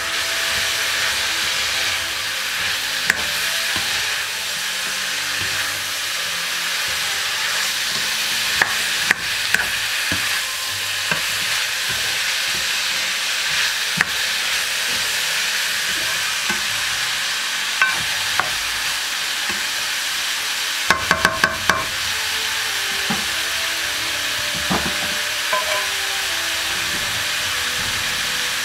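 Sliced onions, bell peppers and garlic sizzling steadily as they stir-fry in a pan, with the spatula knocking against the pan now and then and a quick run of knocks about three quarters of the way through.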